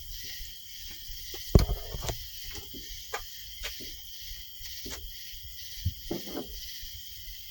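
Scattered knocks and clinks of hand tools being handled, the loudest about a second and a half in, over a steady high-pitched chorus of crickets.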